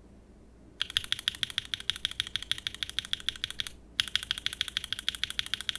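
Fast typing on a mechanical keyboard fitted with pre-lubed Gateron Mars-based linear switches, comparing a POK stem with a swapped-in POM stem. The sound comes as two runs of rapid, crisp keystrokes: the first starts about a second in, there is a brief pause near the four-second mark, and the second run follows.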